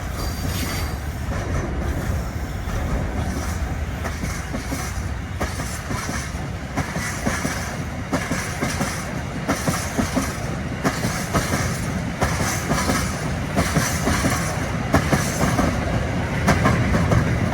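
Empty steel freight wagons rolling past, their wheels clicking steadily over the rail joints.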